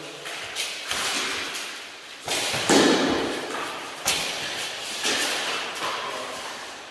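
Armoured fencers colliding and grappling: a series of thuds and clattering knocks of armour and bodies, with the loudest thud a little under three seconds in, each echoing in a large hall.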